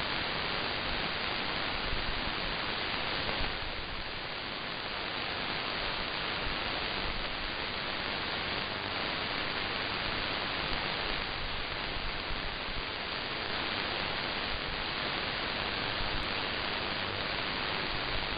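Shortwave radio static: a steady hiss from an SDR receiver tuned to a weak AM broadcast signal on 9940 kHz, cut off above the receiver's audio bandwidth, with no programme audio coming through.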